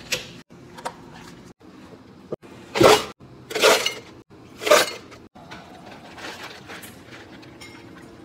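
Ice cubes clattering into clear plastic cups: three loud rushes of ice about three to five seconds in, then lighter rattling of the cubes. Near the start, two sharp clicks of a plastic lid being pressed onto a cup.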